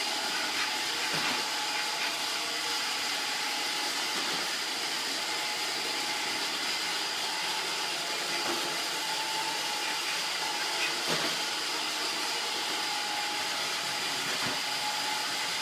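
Roomba robot vacuum running with a steady whir and a thin high whine, with a few faint clicks.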